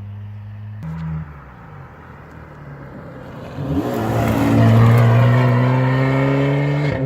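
Citroën C4 Coupé engine through a straight-pipe exhaust with no silencers: idling, a short throttle blip about a second in, then a loud rev whose pitch climbs steadily for about three seconds before it falls back to idle near the end.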